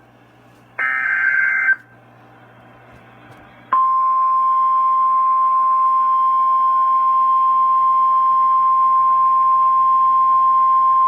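An emergency-alert data header burst sounds briefly about a second in: a buzzy digital screech lasting about a second. After a short pause, the single steady warning alarm tone of a NOAA Weather Radio severe thunderstorm warning (about 1050 Hz) starts and holds without a break.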